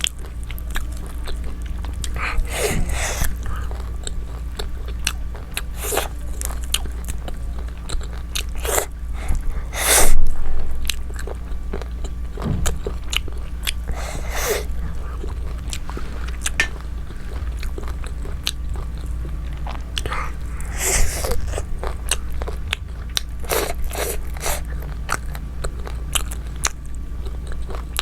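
Close-up eating sounds: biting and chewing of food, with many short wet clicks and smacks and a few longer, noisier mouthfuls, the loudest about ten seconds in. A steady low hum runs underneath.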